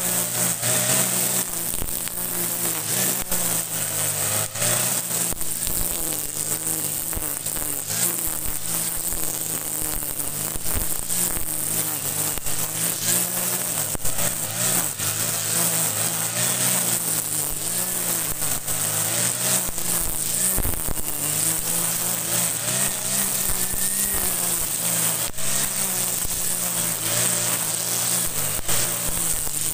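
Kawasaki TJ45 two-stroke brush cutter running steadily while cutting grass, its engine pitch wavering slightly up and down with the load.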